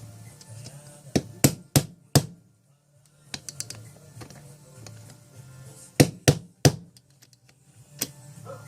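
Sharp taps and knocks, a cluster of four in the first few seconds and three more about six seconds in, with a single one near the end, over quiet background music.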